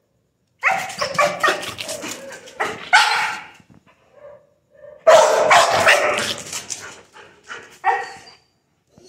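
A dog play-barking in quick runs: a burst of rapid barks about a second in, another about five seconds in, then a few short barks near the end.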